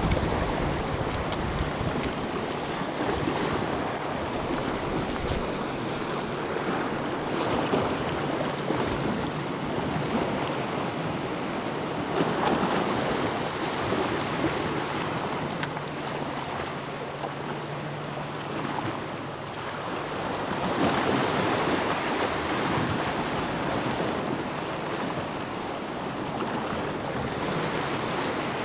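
Sea waves washing and foaming against shore rocks, swelling and easing every several seconds, with wind on the microphone.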